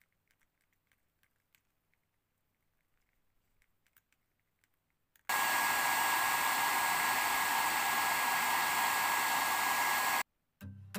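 Faint ticks of a brush stirring resin in a plastic cup, then a heat gun switched on about halfway through: a steady rush of blown air with a constant high whine, warming the epoxy to pop its air bubbles, switched off abruptly about five seconds later.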